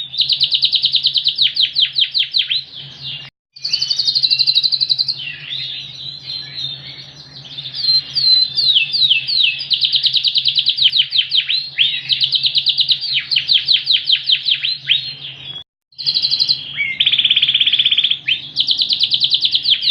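Yorkshire canary singing loudly in long, fast trills of repeated sweeping notes, with varied phrases between them. The song cuts off abruptly twice for a moment. A faint steady low hum sits underneath.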